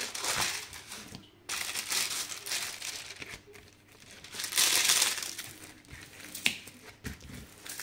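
Clear plastic film crinkling as a hand smooths it flat over a diamond painting canvas, in several rustling bursts, the loudest about five seconds in.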